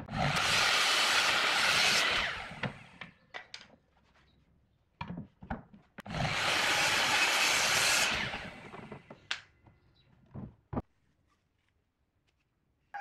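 A tool working wood: two bursts of scraping noise, each about two seconds long, about six seconds apart, with scattered wooden knocks and taps between them.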